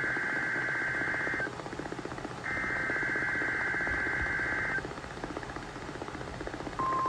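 NOAA Weather Radio emergency alert signalling: two bursts of SAME header data, a harsh warbling digital buzz about two and a half seconds long each with a pause between, then near the end the steady 1050 Hz warning alarm tone starts, which sets off alert receivers.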